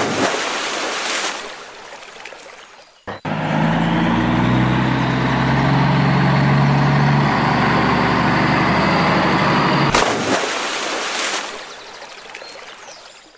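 A sharp crash and splash as a toy vehicle plunges into a muddy puddle, the splashing noise trailing off over a few seconds. A truck engine then runs steadily for about seven seconds, ending in a second sharp crash and splash that trails off as the toy dump truck lands in the puddle.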